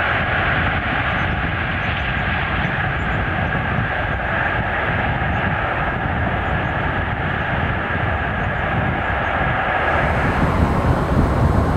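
Antonov An-124-100 Ruslan's four D-18T turbofan engines running at power, a steady jet roar with a high whine. About ten seconds in the whine drops out and the sound grows a little louder and fuller.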